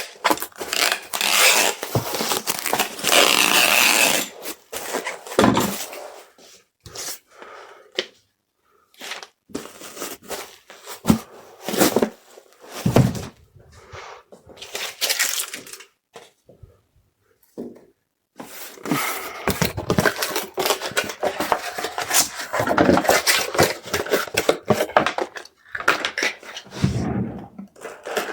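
Packaging materials being handled while packing an order: irregular bursts of rustling and scraping, with a few brief silent pauses.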